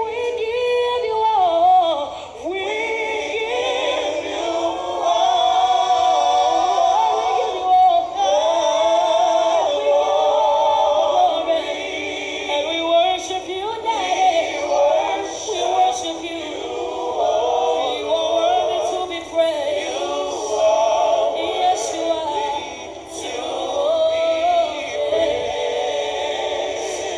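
A woman singing a worship song into a microphone, drawing out long notes that waver and slide in pitch.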